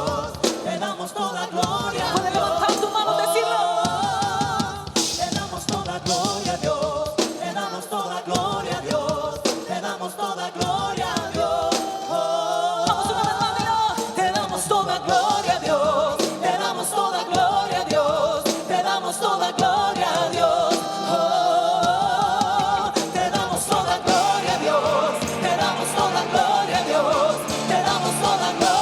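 Worship band music: sung vocals over drums and band accompaniment, a Christian worship song.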